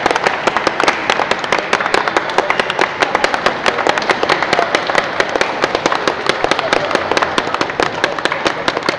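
A small group applauding: many sharp hand claps close by, packed tightly together, that break off suddenly at the very end.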